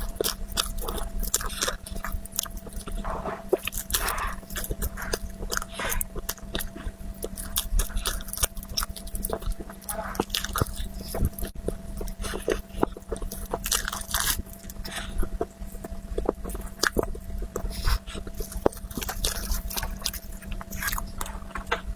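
Close-miked mouth sounds of someone biting and chewing a chocolate dessert: many short, irregular clicks and smacks with no break.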